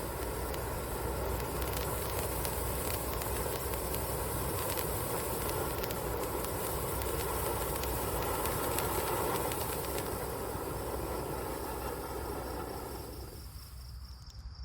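Hand-held Super Sucker firework fountain, three tubes firing together, burning with a steady hissing rush and scattered crackles, dying away near the end as it burns out.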